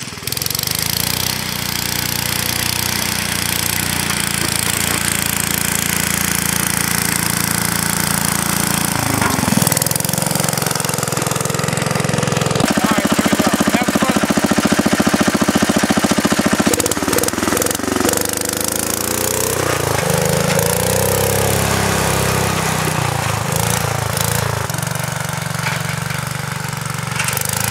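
Freshly rebuilt Kohler K161 single-cylinder engine of a Wheel Horse 702 garden tractor running as the tractor plows snow, its speed rising and falling a few times. It is loudest with an even, rapid pulse for a few seconds around the middle, when the engine is close by.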